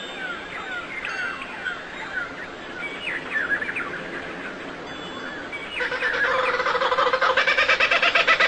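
Birds calling: many short, falling chirps overlapping for the first five seconds. About six seconds in, a louder, rapidly pulsing call takes over and grows louder.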